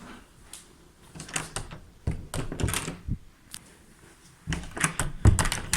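Door handle and latch being worked: two bursts of rattling clicks and knocks, the second ending in a heavier thud.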